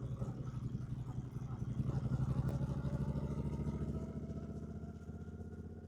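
2024 Triumph Bonneville T120's 1200 cc parallel-twin engine idling with an even, pulsing beat. It gets a little louder about two seconds in, then slowly fades away toward the end.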